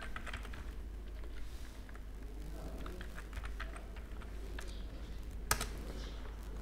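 Computer keyboard keys tapped at irregular intervals, with one sharper, louder click about five and a half seconds in, over a low steady hum.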